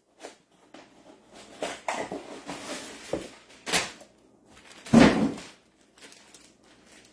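A cardboard box being handled and a jersey in a plastic bag pulled out of it: scraping and rustling with a sharp knock, and the loudest rustling burst about five seconds in.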